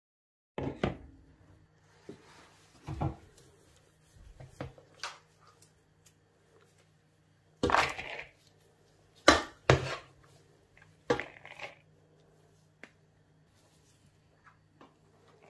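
A measuring jug scooping raw chicken mince filling from a metal bowl and tipping it into a serving bowl. There is a series of sharp knocks and scrapes of the jug against the bowls, the loudest about eight to ten seconds in, over a faint steady low hum.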